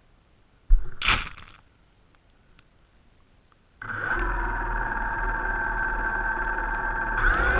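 A single thump about a second in, then the DJI Phantom quadcopter's motors and propellers start up suddenly near the end and run steadily with a whine of several tones over a low hum.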